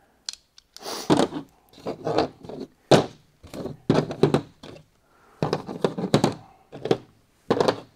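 Metal crimp dies of a hydraulic AC hose crimper being handled and set down on a folding table: an irregular run of knocks and clicks in short bunches.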